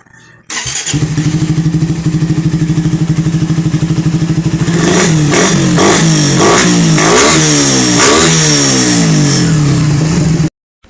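Suzuki Raider R150 Fi single-cylinder engine with a 51 mm big elbow header and the carburettor model's stock canister muffler, idling with an even pulsing exhaust beat, then revved in several quick blips that rise and fall in pitch. The sound starts abruptly about half a second in and cuts off suddenly near the end.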